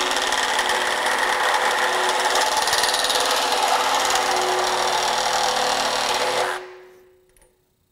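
Metabo HPT CR18DAQ4 18-volt cordless one-handed reciprocating saw cutting through metal electrical conduit, running steadily at full speed. About six and a half seconds in it stops and winds down quickly.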